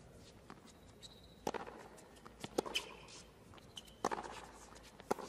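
Tennis rally on a hard court: about four racket strikes of the ball, roughly a second apart, with short high squeaks of tennis shoes on the court between them.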